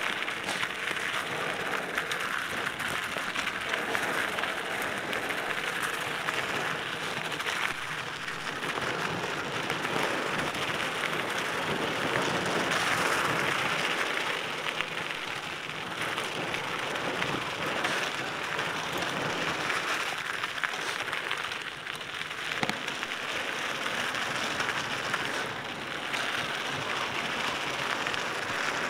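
Cannondale mountain bike rolling downhill on a gravel single-track, its tyres crunching and the bike rattling over loose stones in a steady crackle, with a sharper knock about two-thirds of the way through.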